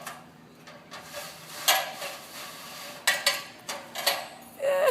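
A series of sharp metallic clanks and knocks, about five of them spread irregularly over a few seconds.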